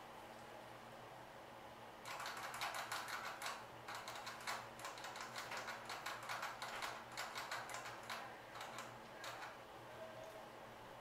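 Rat rustling in dry paper cage bedding: a quick run of crackly clicks that starts about two seconds in and dies away near the end.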